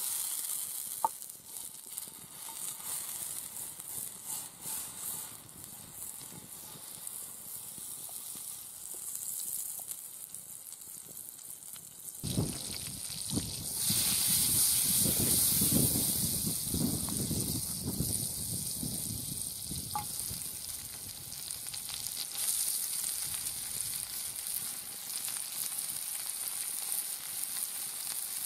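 Butter sizzling in a hot frying pan over a wood fire, a steady hiss. About twelve seconds in it turns suddenly louder and fuller, with a lower rumble mixed in, and later sliced peppers and mushrooms are frying in the butter with a strong sizzle.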